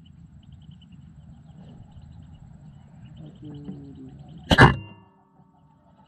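A single air rifle shot about four and a half seconds in: a sudden sharp report with a short ringing tail. Under it is a faint background with high chirping.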